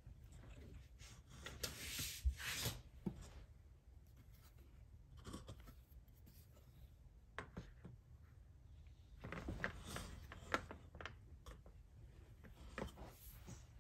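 Soft rustling and rubbing of plastic sheets being handled and slid over the plastic carriage of an LK150 knitting machine, with light clicks. There are two longer swishes, about two seconds in and about ten seconds in.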